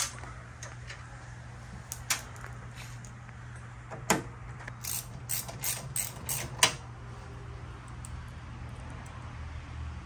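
Sharp clicks and knocks of metal parts as a washing machine's sheet-metal cabinet and panels are fitted back together with a hand screwdriver: single clicks at the start, about two seconds in and about four seconds in, then a quick run of about six around the middle. A steady low hum runs underneath.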